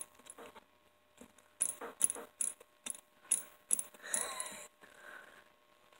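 Small brass bell on an LGB G-scale toy steam locomotive flicked by hand, giving a string of light, high dings with a short break about a second in.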